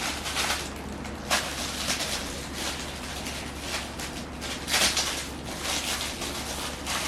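Rustling and scraping handling noise in uneven bursts from cat-cage parts being worked during assembly, the loudest bursts about a second in and near five seconds.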